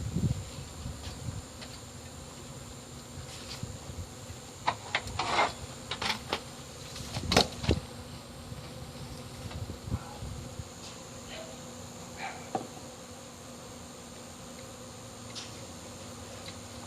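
A disturbed honeybee colony buzzing as a steady, low hum. Scattered knocks and clicks come through, clustered a few seconds in and again near the middle.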